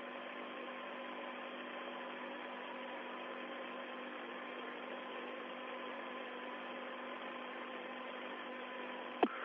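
Steady hiss of an open, narrow-band radio voice link between transmissions, with a faint hum of steady tones. A short click comes near the end.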